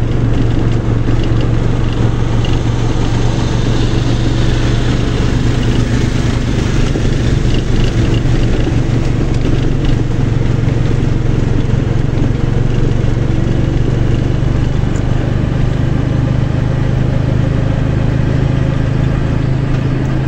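A road vehicle's engine running at a steady cruise, a constant low hum over road and wind noise.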